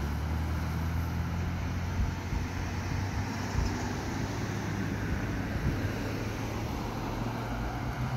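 Car engines idling with low steady hum, with road traffic driving past.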